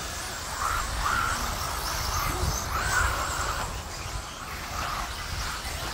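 Small RC mini truggies racing on a dirt track, their motors giving short rising and falling whines as they speed up and slow down through the turns, over a steady low rumble.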